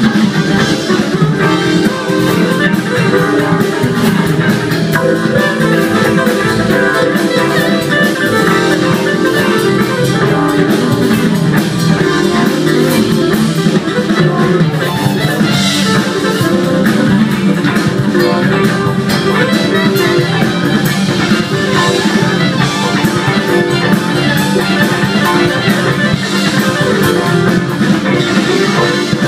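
Live electric band playing an instrumental passage: electric guitars, bass guitar, keyboards and drum kit, continuous and steady in level.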